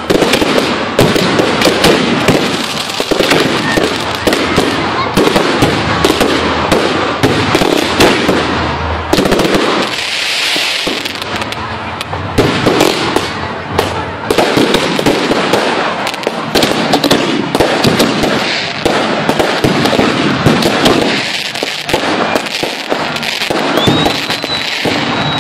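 Fireworks going off in a dense, continuous barrage of rapid crackling and popping, with a short hiss about ten seconds in.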